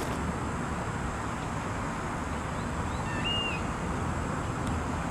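Steady background street noise with a low rumble, and one short high chirp about three seconds in.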